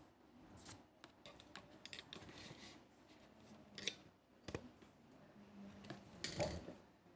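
Soft handling noises: scattered light clicks and rustles as a small diecast airliner model is turned and repositioned in the hands, with a few louder knocks around the middle and a short cluster near the end.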